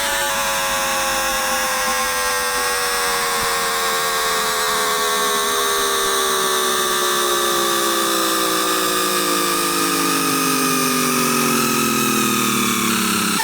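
Electrical whine of a Times Electric tPower-TN28 VVVF traction inverter and motors, picked up by an inductive pickup coil rather than a microphone. Several tones fall steadily in pitch over a steadier higher tone as the motors slow, typical of the train braking, and the pattern changes abruptly at the very end.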